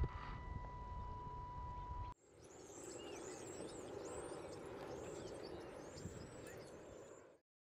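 Outdoor ambience in two parts. First, wind rumbling on the microphone with a steady high-pitched tone, cut off abruptly about two seconds in. Then a steady background rush with many small birds chirping, which stops dead a little before the end.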